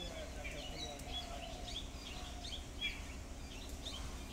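Several small birds chirping and twittering in quick, scattered calls, over a low steady rumble.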